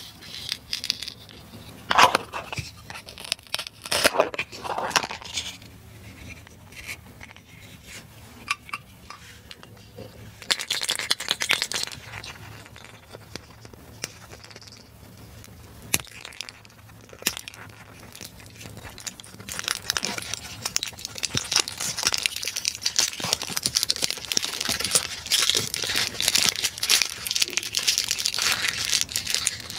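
Hard plastic toy pieces clicking and knocking in the hands, then the plastic shrink-wrap on a plastic surprise egg being torn and crinkled, a dense steady crinkling from about two-thirds of the way in.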